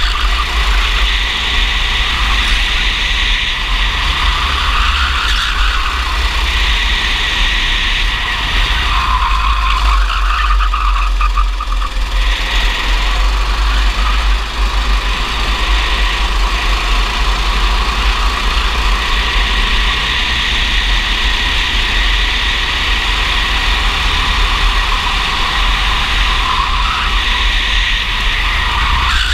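Racing go-kart engine running hard at race pace, heard from on board the kart, its revs falling and climbing again through the corners. A steady low rumble of wind on the microphone runs underneath.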